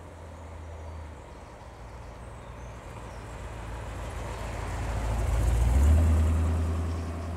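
Porsche 928's V8 engine running at low revs as the car rolls slowly towards and past, getting louder to its peak about six seconds in as it goes by.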